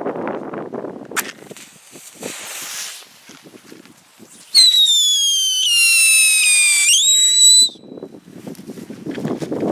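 A whistling firework going off with a loud, shrill whistle for about three seconds. Its pitch slides slowly down, then jumps back up just before it cuts off suddenly. There is wind noise on the microphone before and after, and a sharp click about a second in.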